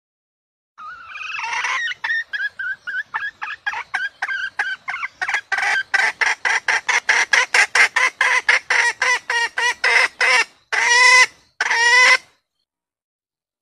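Female red junglefowl hen calling: a run of short clucks that speeds up and grows louder, ending in two long, loud calls, like a hen's cackle.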